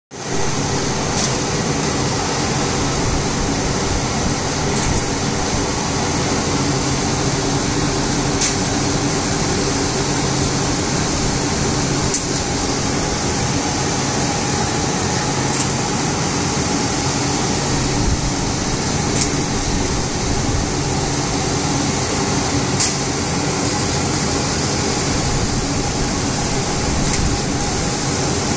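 Laser cutting machine running as it cuts acrylic sheet: a steady hum and hiss, with a faint click about every three and a half seconds.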